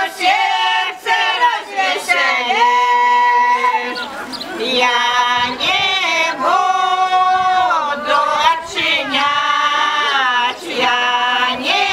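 A women's folk choir singing a Belarusian folk song, with long held notes and slides in pitch between phrases.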